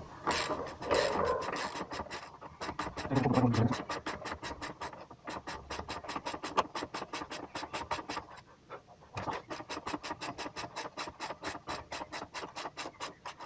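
Hand ratchet wrench clicking rapidly and evenly as a rear engine mount bolt is wound in by hand, the bolt turning freely in its thread. There are a few louder scraping knocks in the first few seconds and a short pause a little after the middle.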